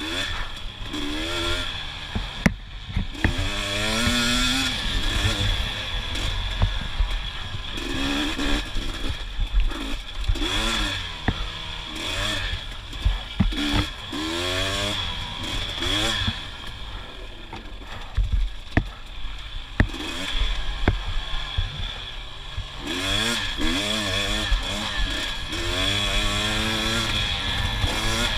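KTM 250 XC TPI two-stroke dirt bike engine revving hard in short bursts, the pitch climbing and dropping back over and over as the throttle is worked through rough terrain. Sharp knocks come now and then, heard close through an on-board GoPro.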